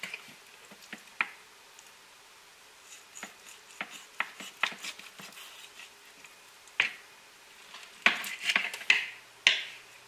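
Knife cutting up a skinned squirrel on a cutting board: irregular sharp taps and clicks of the blade on the board, with wet handling of the meat, and a few louder knocks near the end.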